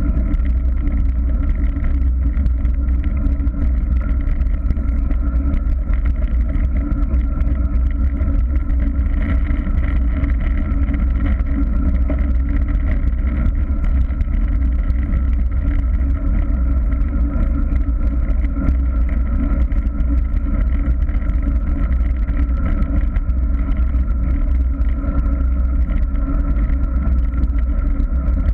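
Steady wind rush and tyre hum from a bicycle rolling along an asphalt road, picked up by a camera on the handlebars, with a constant deep rumble of wind on the microphone.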